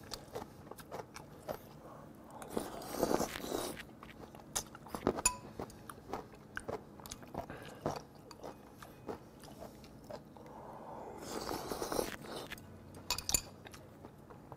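Close-miked eating: a person chewing spoonfuls of food, with scattered small sharp clicks of a metal spoon against a ceramic bowl. Two longer noisy stretches of eating come a few seconds in and again near the end.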